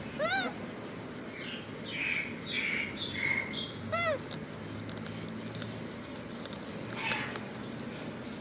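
Baby macaque giving short, high-pitched cries that rise and fall, twice: near the start and about four seconds in. Soft clicks and rustles come between the cries.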